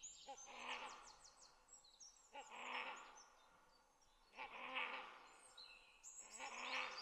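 Great hornbills calling: four faint, hoarse, barking calls spaced about two seconds apart. Thin high-pitched chirps run under the first two calls.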